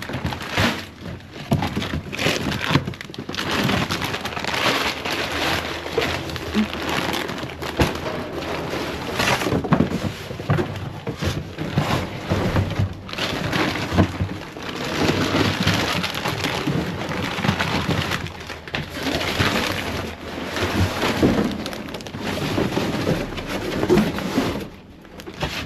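Cardboard boxes and plastic chip bags rustling, crinkling and scraping as gloved hands dig through and shift them in a dumpster, with frequent crackles; it dips briefly near the end.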